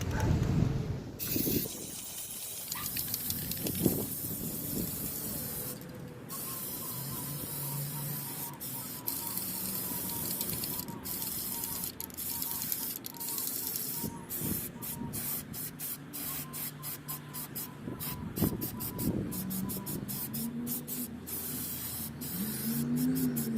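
Aerosol can of Rust-Oleum primer hissing as it is sprayed, in long steady passes that break into many short bursts in the second half.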